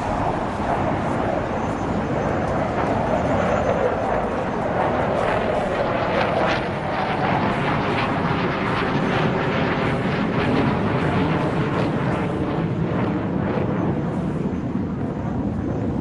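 Chengdu J-10 fighter jets' engines flying past in a display, a steady jet roar whose tone slowly sweeps up and down as the aircraft move across the sky.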